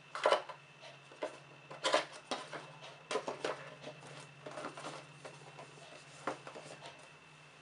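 Hands handling a cardboard iPad box and its plastic power adapter: irregular clicks, taps and knocks of plastic on cardboard, loudest about a third of a second in and again about two seconds in, over a faint steady hum.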